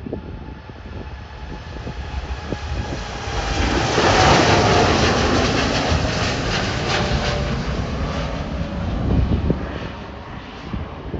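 Jet airliner's engines passing close by, the noise swelling to a peak with a steady whine about four seconds in, then slowly fading.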